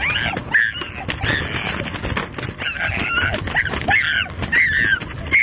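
Birds calling over and over in short calls that rise and fall in pitch, over the low rolling rumble of scooter wheels on a wet concrete sidewalk.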